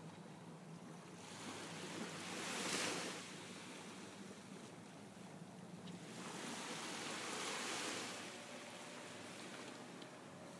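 Small waves breaking and washing onto the shore, in two slow surges about five seconds apart, over a steady background wash.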